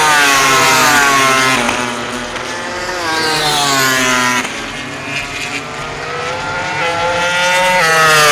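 MotoGP racing motorcycles running at high revs past the track, several passes, the engine note falling as each goes by, with one slower climb in pitch midway.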